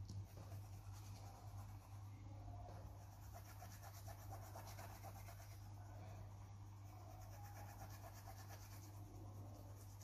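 Near silence: a steady low electrical hum with faint scratchy rustling.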